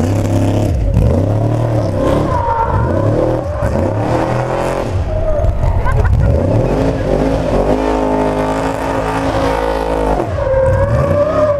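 Trophy truck's engine revving hard, its pitch climbing and falling again and again as the truck slides through tight turns. A little past the middle it is held at steady high revs for about two seconds, then drops away.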